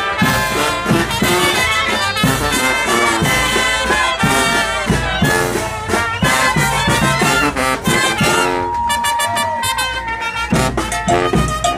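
Live Mexican banda brass band playing: clarinets and trumpets carry the melody over a trombone and a sousaphone bass line. About three quarters of the way through, the bass drops out briefly under a long held note, then the full band comes back in.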